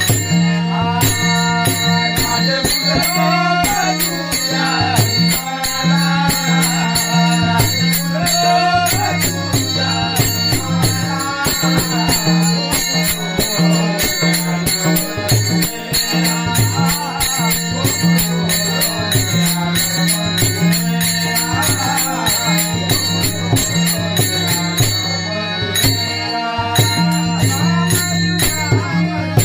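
Marathi Warkari bhajan music: rapid jingling of small hand cymbals over a steady drone, with a wavering melodic line above.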